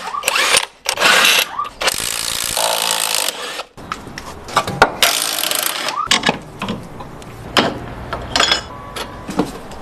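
Ratchet and wrench work loosening and removing bolts on a car's front suspension, in several hissy bursts of up to about two seconds, with clicks and knocks of metal parts between them. The parts being taken off are the lower control arm and outer CV joint, which are worn.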